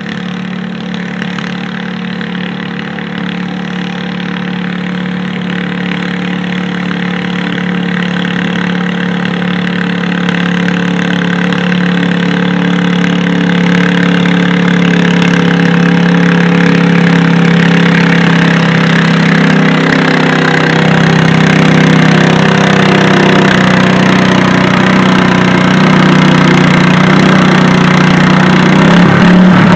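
Garden tractor engine running hard under steady load as it pulls a weight-transfer sled, growing steadily louder as it comes closer. Its pitch holds mostly even, wavering a little in the later part of the pull.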